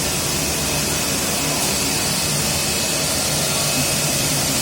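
The suction blower of a CNC cutting machine's vacuum table running steadily: an even rush of air with a strong high hiss.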